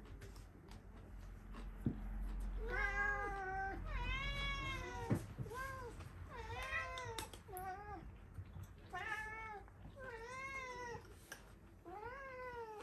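Domestic cat meowing over and over, about nine rising-and-falling meows in quick succession: a cat begging for food at the table.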